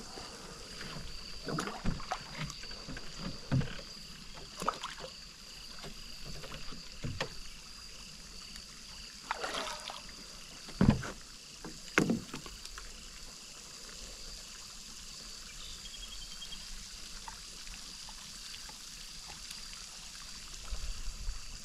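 Water splashing as a small hooked catfish thrashes at the surface and is grabbed and lifted out of the pond, with two sharp splashes near the middle.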